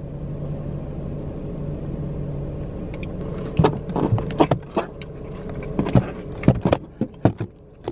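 Steady low hum of a car idling, heard inside the cabin. From about halfway through, a dozen or so sharp, irregular clicks and knocks of things being handled close by.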